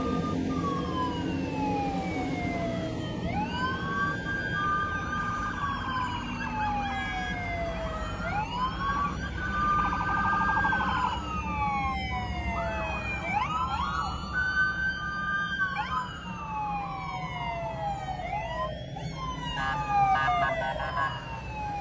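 Several police and emergency vehicle sirens wailing at once, each rising and slowly falling in pitch and overlapping out of step with the others, over the low rumble of passing heavy vehicles.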